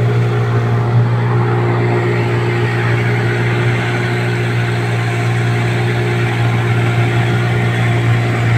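A boat's engine running steadily while under way, a constant low drone with a steady whine above it.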